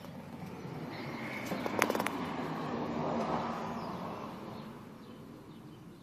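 A vehicle passing by, its noise swelling and then fading away over a few seconds, with a few sharp clicks about two seconds in.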